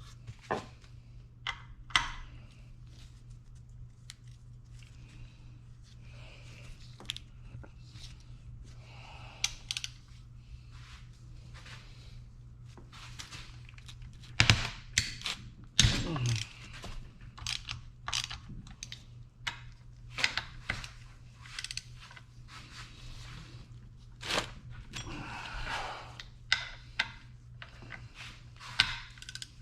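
Irregular clinks, knocks and scrapes of hand tools and metal engine parts being handled, with a steady low hum underneath.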